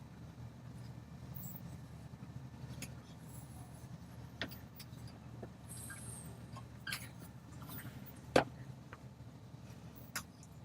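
Rubber weatherstrip being worked by hand onto the edge of the rear window glass: faint rubbing and scraping with a few sharp clicks, the loudest about eight seconds in, over a low steady hum.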